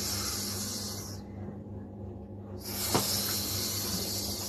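A person hissing through the teeth in imitation of a snake: a long hiss that stops about a second in, then another starting past the middle and running on. A low steady hum sits underneath, with a short click near the middle.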